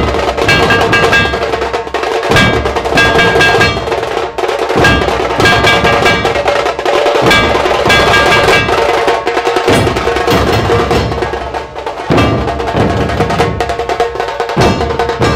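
Dhol-tasha ensemble playing: several large barrel-shaped dhol drums beaten in a fast, driving rhythm, with a big hanging metal plate struck by a rod ringing over the drums.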